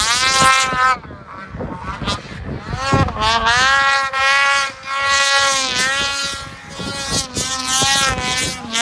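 Ski-Doo Summit 850 snowmobile's two-stroke engine revving hard in repeated throttle bursts, its pitch climbing and falling with short let-offs between bursts.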